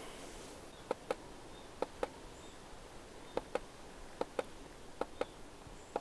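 Small plastic button on a trail camera clicking in quick double clicks, press and release, about one pair a second, as recorded clips are stepped through on the camera.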